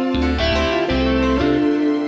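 Background music: a melody of held notes over a low bass line.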